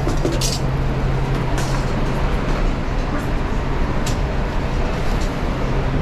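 Steady roar of a busy commercial kitchen's ventilation, with a constant low hum. A few light metal clinks come from the charcoal grill being handled.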